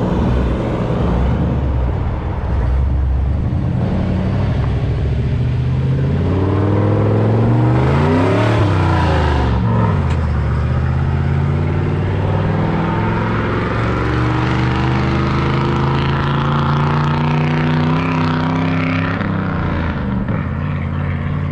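Ford 460 big-block V8 in a 1995 F350 pickup running under way. Its engine note swings up and down in pitch around the middle, then climbs slowly as the truck pulls.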